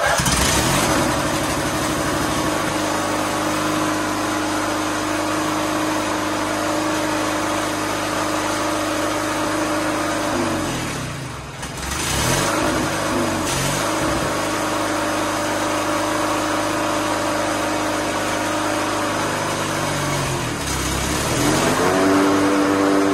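Briggs & Stratton opposed-twin engine of a riding mower running steadily just after starting. Twice its speed sags and comes back up as load goes on, with the blades engaged and the drive in reverse, and near the end it settles at a higher, steady speed. It keeps running instead of being cut out by the seat safety switch.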